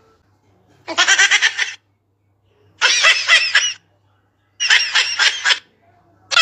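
Kittens meowing: three high, wavering cries of about a second each, with short pauses between them.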